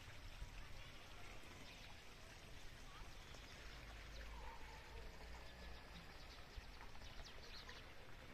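Faint outdoor ambience, close to silence: a steady low hiss and rumble with a few faint, short, high chirps.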